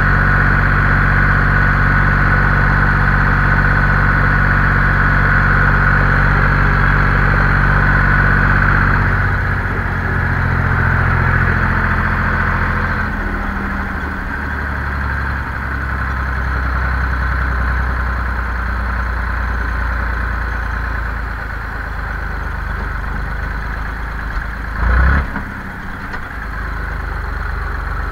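Zetor 5245 tractor's four-cylinder diesel engine running while driving, heard from inside the cab. The engine note drops lower about ten seconds in, and there is one loud thump near the end.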